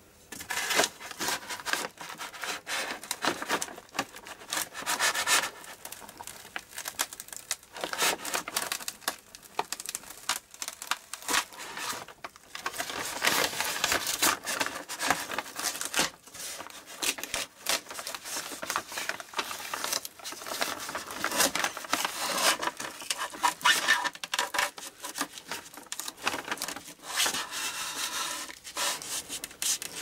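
Styrodur foam part being worked loose from double-sided tape on a CNC spoil board: irregular rubbing, scraping and tearing of foam and tape, with no spindle running. The tape holds hard enough that the spoil board's surface tears away bit by bit as the part comes off.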